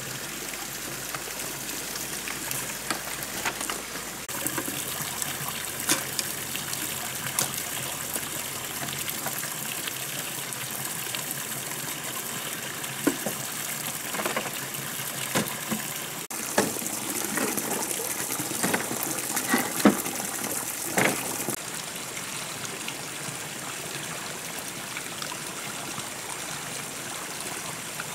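Steady trickling, rushing water, with scattered knocks and clatter of dry bamboo sticks being handled and set down, busiest in the middle of the stretch.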